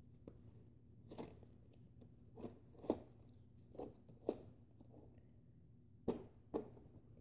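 Foam darts being pushed one by one into a Nerf 25-dart drum magazine: a series of about eight short, soft plastic clicks and knocks, several coming in pairs.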